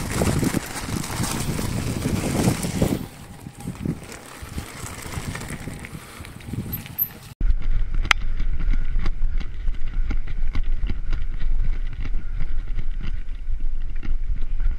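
Bicycle ride: wind buffeting the microphone over tyre noise on a gravel path, then an abrupt cut to a handlebar-mounted camera on a mountain bike rolling down a dirt forest trail, with a steady deep rumble and fast rattling and knocking from the bars shaking over the bumps.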